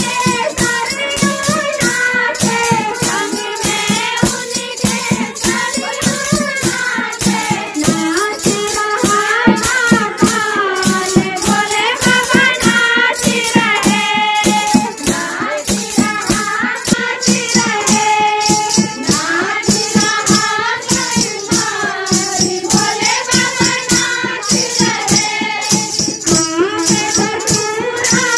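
Women singing a Hindu devotional kirtan song, a lead voice on a microphone with the group joining, over a fast, steady beat of clapping and rattling hand percussion, about three strokes a second.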